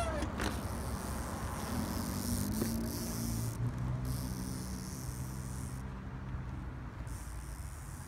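A motor vehicle engine running low and steady, rising slightly about two seconds in and fading near the end, with a faint high hiss over it.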